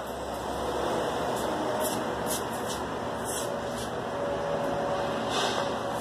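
Steady background noise in a shop, with a few faint, light clicks and rustles of someone handling things by hand.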